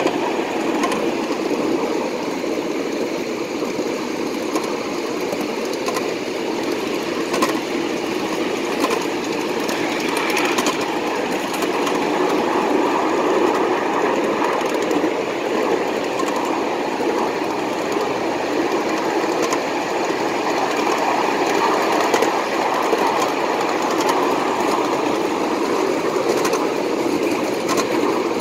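Empty coal hoppers of a large-scale model train rolling past, their wheels making a steady, rapid clickety-clack over the rail joints with a rattle from the empty cars.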